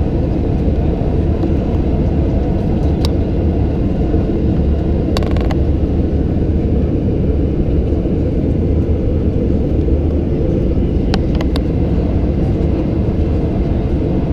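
Steady low roar of engine and airflow noise inside the cabin of a Boeing 737-800 with CFM56-7B engines, unchanging throughout, with a few brief sharp clicks a few seconds apart.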